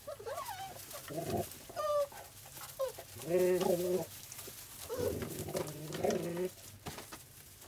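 Young puppies whimpering and squeaking in a series of short, high, wavering calls, some sliding up or down in pitch.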